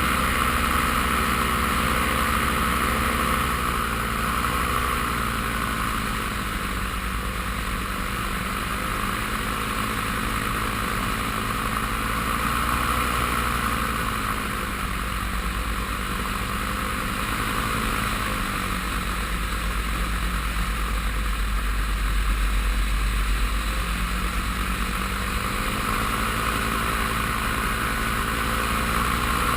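Paramotor engine and propeller running steadily in flight, its pitch drifting slowly up and down with small throttle changes, with wind rumble on the microphone.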